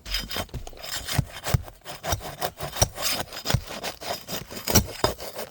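Scraping and rubbing on Elk Prestique architectural asphalt shingles, broken by frequent short knocks at an uneven pace: a roofing bar being worked under the shingle tabs to break their sealant bond.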